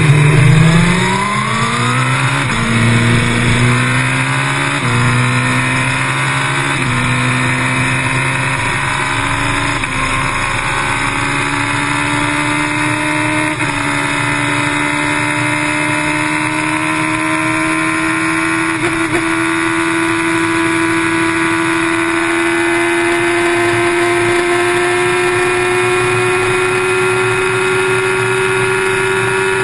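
A vehicle engine at full throttle, accelerating hard through the gears. Its pitch climbs quickly and drops at five quick upshifts over the first fourteen seconds or so, then rises slowly and steadily in top gear as speed keeps building.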